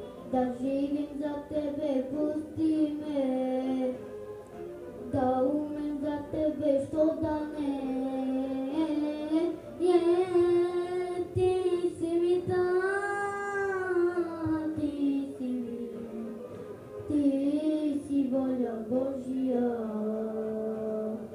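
A boy singing a melodic song in phrases, with a long held, wavering note a little past halfway.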